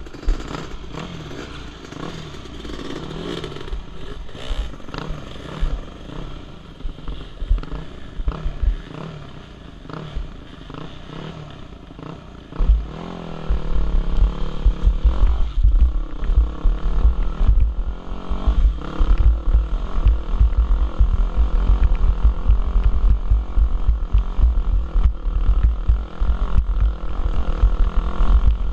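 Dirt bike engine revving up and down as the bike is ridden along a rough trail. About halfway through a heavy low buffeting sets in and becomes the loudest sound.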